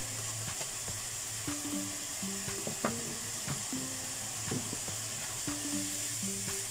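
Chillies, garlic and shallots sizzling steadily in oil in a stainless steel wok. Scattered clicks and scrapes of a spatula stirring against the pan, the sharpest about three seconds in.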